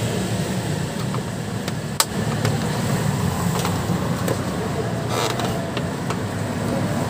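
Small screwdriver prying and scraping at the plastic grille frame of a tower speaker. One sharp click comes about two seconds in and a short scrape near five seconds, over a steady low background rumble.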